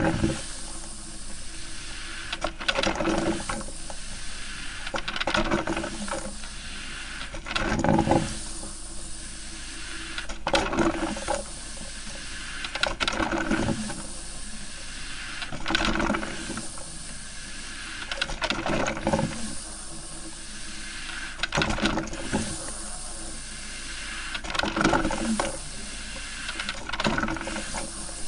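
Coffee maker brewing: a steady steamy hiss broken by irregular gurgling spurts every two to three seconds.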